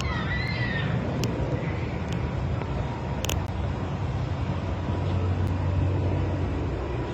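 Steady low engine rumble of heavy machinery, swelling a little about five seconds in, with a brief sharp tick about three seconds in.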